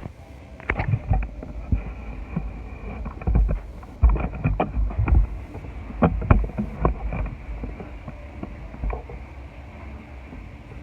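Crunchy slime being squeezed and worked by hand, giving irregular crackles and clicks, with low thumps from handling close to the microphone.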